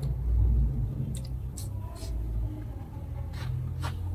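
A steady low rumble, with a few soft taps and rustles from a measuring tape, fabric and paper pattern pieces being handled.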